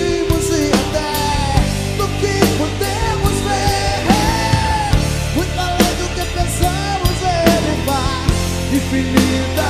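Live rock band playing: a drum kit keeps a steady beat under sustained bass notes, with a lead melody that bends and slides in pitch.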